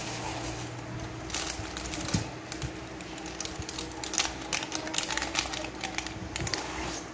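Crinkling and crackling of a thin plastic packet being handled and torn open by hand, a scatter of short sharp crackles, over a faint steady hum.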